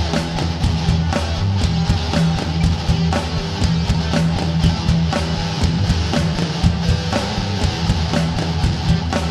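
Rock intro music with guitar and a steady drum beat.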